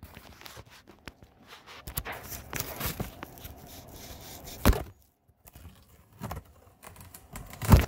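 Cardboard shipping box being opened by hand, its flaps and packing paper rustling and scraping, with two sharp knocks, one a little past halfway and one at the very end.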